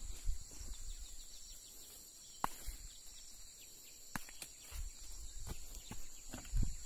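Steady high-pitched insect chirring in the background, with rustling and handling noise as vines and soil are moved by hand close to the microphone, and two sharp clicks about two and a half and four seconds in.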